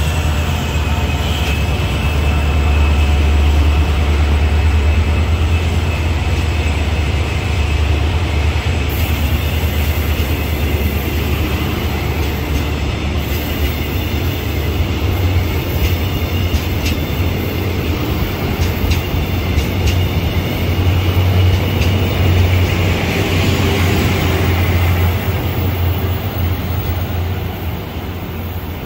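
Passenger coaches of a departing train rolling past a platform at low speed: a steady low rumble with a thin high tone over it and a few faint clicks near the middle. The sound eases off over the last few seconds as the train moves away.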